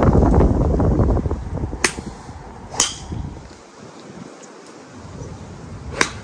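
Golf clubs striking balls off driving-range mats: three sharp cracks, the last near the end. Wind buffets the microphone with a low rumble for the first couple of seconds.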